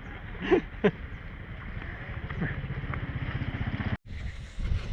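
An engine idling with a steady, even low throb, with a couple of short voice sounds in the first second; it cuts off abruptly about four seconds in and gives way to a breezy outdoor background.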